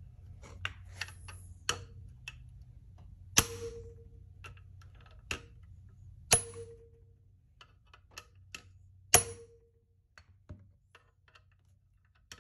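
A hammer striking a 14 mm socket set over a valve's locks on an LS cylinder head, several sharp metallic blows a few seconds apart, the hardest ones leaving a short ring, with lighter clicks between. The blows break the valve locks loose from the titanium spring retainer, held down by a valve spring compressor.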